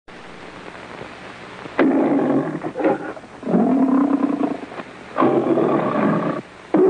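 Lion roaring three times, the MGM trademark lion's roar on an old film soundtrack, with faint hiss before the first roar about two seconds in.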